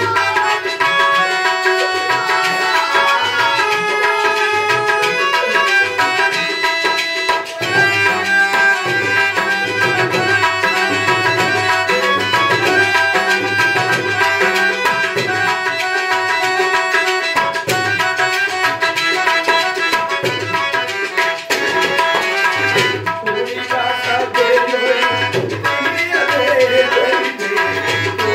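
Tabla playing a steady rhythm, its low bass-drum strokes repeating evenly, over held melodic notes from an accompanying instrument in devotional music.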